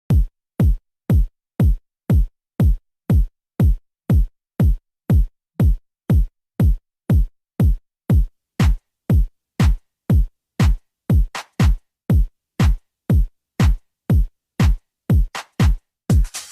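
Intro music: an electronic kick drum beating alone, about two beats a second, each hit falling in pitch, with a quick doubled hit twice. A full dance track comes in near the end.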